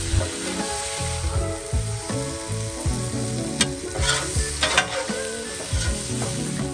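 Shrimp, steak and vegetables sizzling on a hot steel flat-top griddle, with a metal spatula scraping across the griddle surface a few times about halfway through, under background music.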